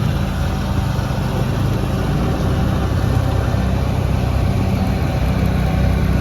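A vehicle engine running steadily, with a low, even drone.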